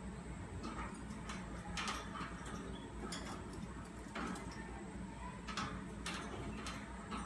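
Irregular light clicks and taps, roughly one every half second to a second, from a pet budgie moving about.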